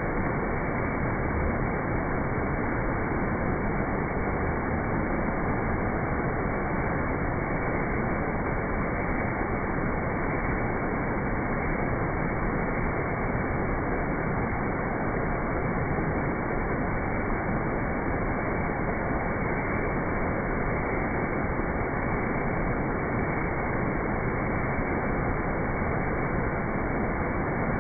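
Khoiyachora waterfall: water falling and splashing in a steady, unbroken rush of noise.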